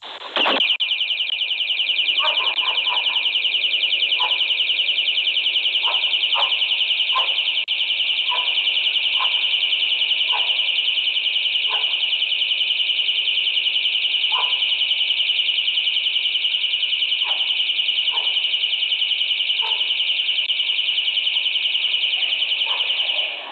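Home security alarm siren going off after a package theft attempt: one continuous shrill tone with a rapid warble, steady throughout, cutting off just before the end.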